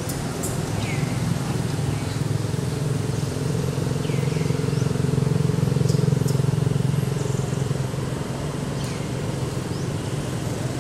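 Steady hum of a motor vehicle's engine, growing louder around the middle and easing off again as it passes. A few short falling chirps sound above it.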